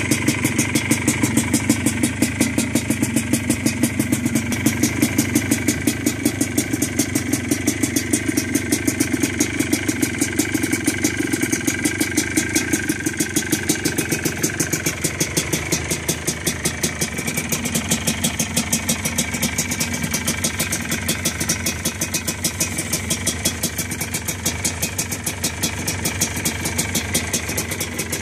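Freshly rebuilt Yamaha Blaster 195 cc single-cylinder two-stroke engine idling steadily through an FMF exhaust, on its first run after the engine build, with a rapid, even firing beat.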